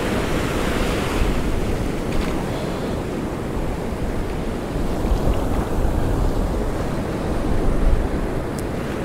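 Ocean surf breaking and washing up the beach in a steady roar, with wind rumbling on the microphone.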